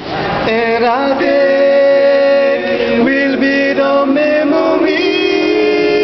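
A small group of men singing a cappella in close harmony, several voices holding chords together and moving between them.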